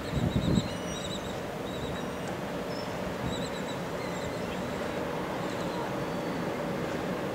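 Wind buffeting the microphone, with a steady rumble and a few heavier gusts in the first half-second, and faint short high bird chirps over it.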